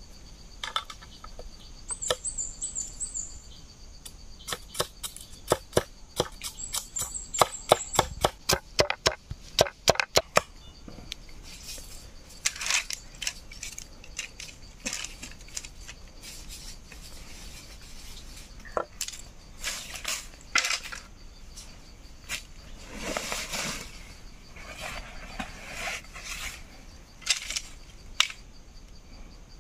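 Machete blade knocking on bamboo against a wooden log: a rapid series of sharp knocks that speeds up in the first third, then scattered scraping and rustling as the split bamboo strips are worked and handled. A bird chirps briefly twice early on over a faint steady insect-like tone.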